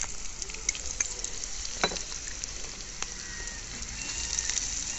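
Onions and freshly added ginger paste sizzling steadily as they fry in hot oil in a nonstick pan, with a few light taps of a spoon, the sharpest about two seconds in.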